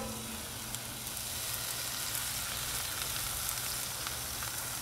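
Eggs frying on a hot Blackstone steel griddle, with water squirted from a squeeze bottle hissing on the hot plate to steam them: a steady sizzle with faint scattered crackles.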